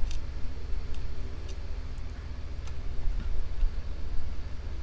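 A few faint, sharp metal ticks and clicks from a Taylor mortise pin-tumbler lock cylinder being taken apart, its pins being removed one by one, over a steady low hum.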